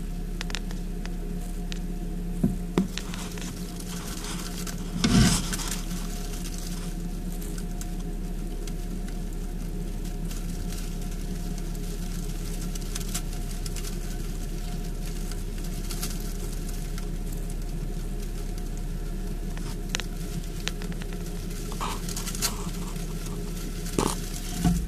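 Scattered soft rustles and clicks of shredded-paper bedding being disturbed close to the microphone, with one louder rustle about five seconds in, over a steady low hum.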